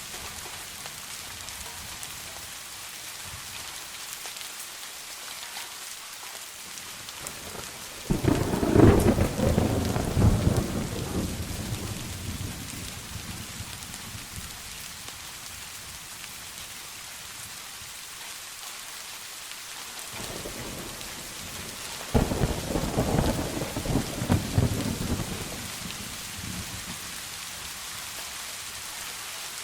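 Steady rain falling, with two claps of thunder: one about eight seconds in and another about twenty-two seconds in, each starting suddenly and rumbling on for a few seconds.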